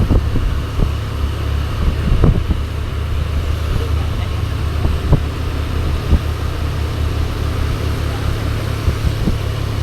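Hino 500 truck's diesel engine running steadily under way, a strong low rumble with occasional short knocks and rattles.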